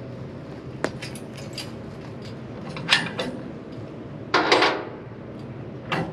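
Metal clicks and clanks as the fittings holding a submersible pump on its mast are worked by hand: scattered sharp knocks and small ticks, with a longer scraping clatter, the loudest sound, about four and a half seconds in.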